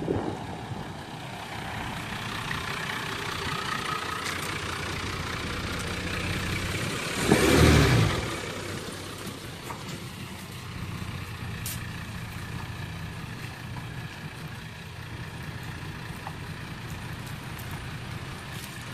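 1991 Nissan Safari Granroad's engine running as the 4WD approaches, with a loud rush lasting about a second some seven seconds in, then idling steadily.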